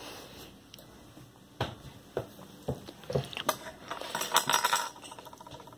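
Handling noises: scattered knocks and clicks, with a rustling stretch about four seconds in, as of a container being handled and fumbled with.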